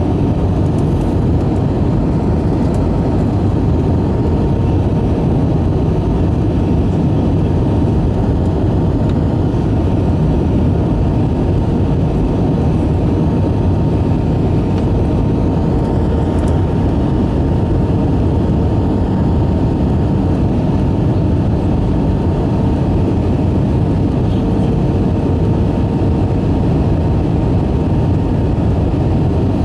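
Steady cabin noise of an Airbus A319 airliner descending on approach, heard from a window seat over the wing: an even rush of engine and airflow noise with a faint steady whine.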